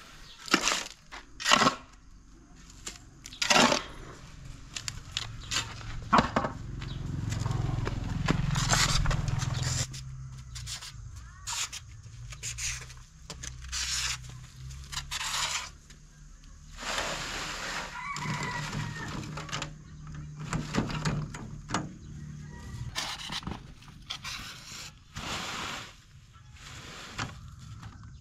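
Farmyard chickens, with a rooster crowing, heard among a string of irregular sharp knocks and scrapes.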